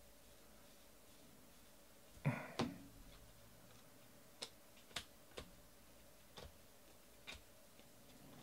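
Baseball trading cards flipped one by one from hand to hand, each card giving a faint click or tap at an irregular pace. Two louder taps come a little over two seconds in.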